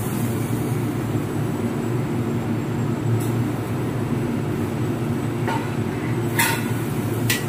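Steady low rumble of a commercial kitchen's exhaust hood fan and gas burner, with a few brief knocks of a metal ladle stirring rice in a large aluminium pot.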